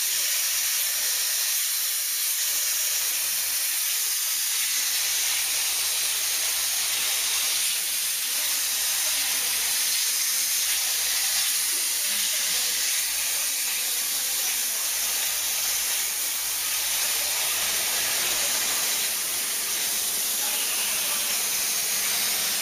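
Flip-top cap closing machine running: a steady, even hiss with a thin high whine over it.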